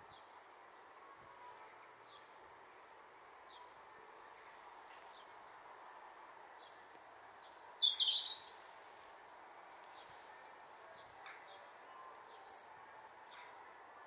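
Garden birds chirping and calling, with faint repeated high chirps throughout, a louder call about eight seconds in and a loud, high, fluttering call near the end, over a steady faint background hiss.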